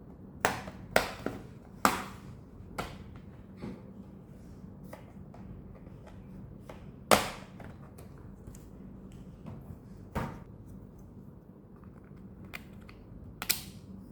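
Handling noises from unboxing a laptop: irregular sharp clicks and knocks, a dozen or so, the loudest about halfway through, over a faint steady hum.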